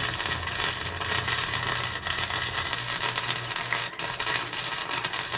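Electric arc welder running a continuous weld on a steel mounting plate: a steady crackling hiss with a low electrical hum underneath.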